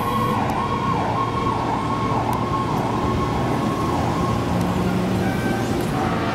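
Electronic siren on a 2008 KME Predator fire pumper, sounding a fast rising-and-falling warble of about two cycles a second that stops a little past four seconds in. A low rumble of engines runs underneath.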